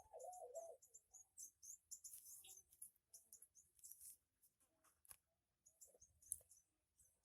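Near silence, with faint scattered high-pitched squeaks and ticks.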